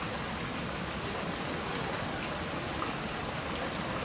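Ginzan River rushing steadily through the town: an even, unbroken hiss of flowing water.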